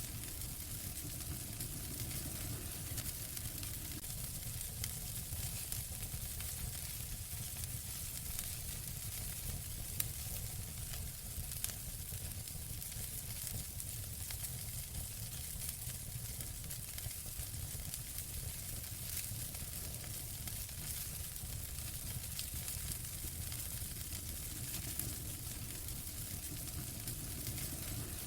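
Wood fire burning in a fireplace: a steady hiss full of small crackles, with a couple of louder pops about ten seconds in and shortly after.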